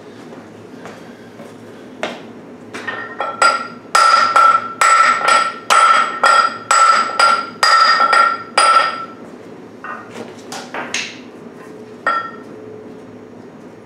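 Hammer blows on the steel flywheel ring gear of a Ford 9N tractor, driving the ring gear off the flywheel. The blows ring like metal: a few light taps, then a fast run of loud strikes at about two or three a second through the middle, then a few lighter ones.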